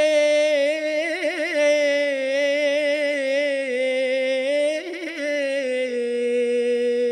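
A male munshid singing an unaccompanied Islamic devotional ibtihal, drawing out one long melismatic note. The note wavers in ornamental trills about a second in and again near five seconds, then sinks slightly in pitch and is held steady.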